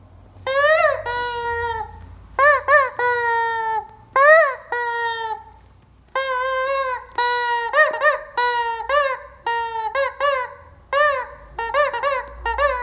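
Rubber chicken squeeze toy squawked over and over, about twenty loud honking squawks. Each jumps up in pitch and then sags lower; some are held for about a second, others come short in quick pairs.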